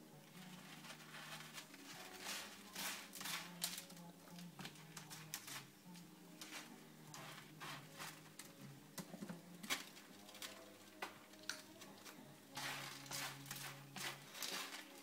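Kitten digging in cat litter in a plastic litter box: irregular scratchy raking strokes, over faint steady low tones.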